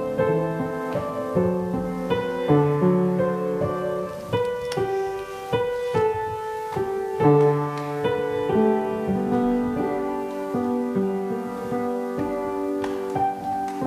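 Piano playing a piece of instrumental music in chords and melody, several notes sounding at once and changing every half second or so.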